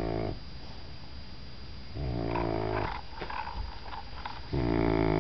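Doberman puppy snoring, a buzzing pitched snore about every two and a half seconds, each lasting about a second.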